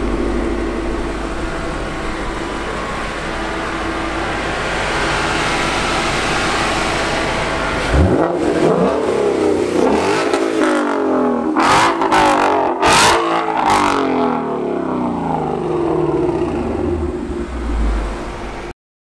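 Ford Mustang engine running at low revs as the car rolls past, then revving up and down repeatedly from about eight seconds in as it accelerates away. The sound cuts off suddenly near the end.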